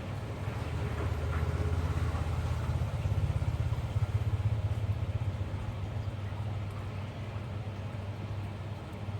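A low motor rumble that grows louder about a second in and eases off after about five seconds.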